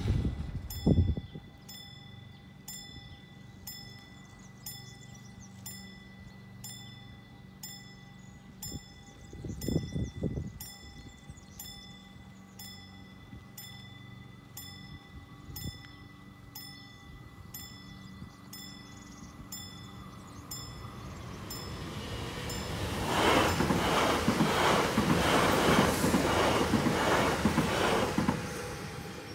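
Level-crossing warning bell ringing about once a second with a steady electronic tone under it, with a few low thumps early on. From about 21 s an electric passenger train approaches and passes the crossing, the loudest sound, then fades near the end.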